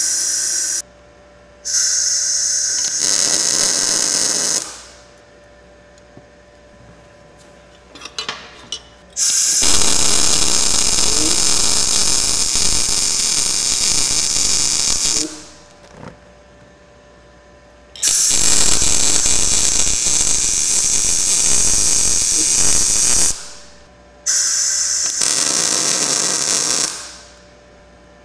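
Blue Demon BLUEARC 140MSI MIG inverter welder on thin sheet steel: two runs of arc crackle of about five seconds each while a tack weld is stacked up. Short bursts of hiss come before and after them, the shielding gas being run through the torch to cure porosity in the weld.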